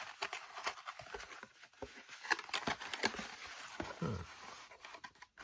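Die-cut card box blanks being folded and handled by hand: rustling, creasing and scraping of card, a run of short crackles.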